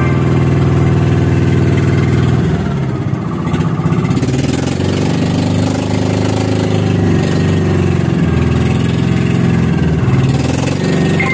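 Outrigger boat (bangka) engine running under way. It runs steadily at first, then its pitch wavers up and down from a few seconds in, dipping briefly twice near the end.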